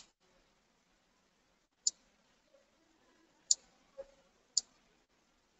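Computer mouse button clicking: four sharp single clicks spaced a second or two apart, with a softer, duller knock between the last two.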